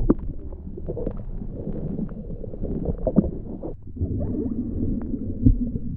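Muffled, low gurgling and sloshing of lake water around a camera held just under the surface, with a few short knocks.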